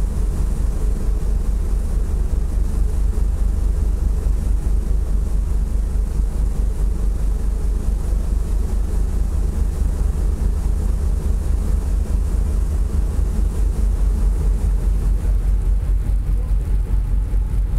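Ferry's engine exhaust from the funnel: a steady, deep rumble.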